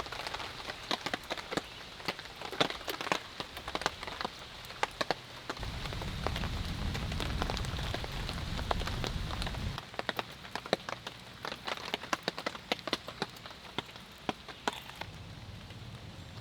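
Rain falling, with many sharp, irregular taps of large drops hitting a surface close by over a steady patter. A low rumble joins for about four seconds in the middle.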